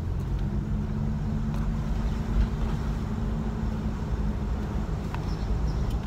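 Car engine running, heard from inside the cabin: a steady low hum.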